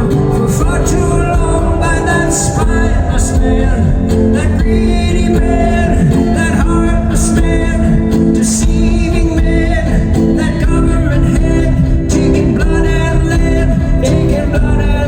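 Live band music: a song played on guitar over a steady low bass and beat, with wordless singing at times.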